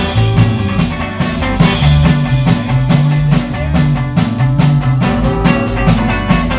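Rock band playing an instrumental passage: steady drum kit beat, electric guitar and a moving bass line.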